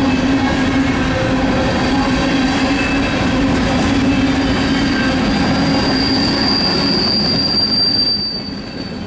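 Freight cars of a Norfolk Southern manifest train rolling past with a steady rumble. A thin, high wheel squeal grows louder about six seconds in, then fades shortly before the end.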